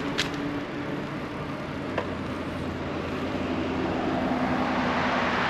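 Steady road noise of passing traffic, a continuous rush of tyres and engines, with two short clicks: one just after the start and one about two seconds in.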